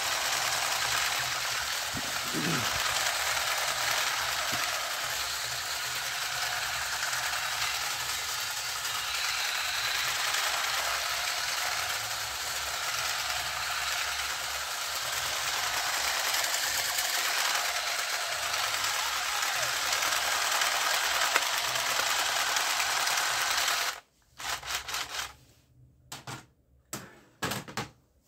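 Battery-operated light-up toy machine gun running its trigger sound effect: a steady, dense rattle that cuts off suddenly about 24 seconds in. A few knocks of plastic toy guns on the table follow near the end.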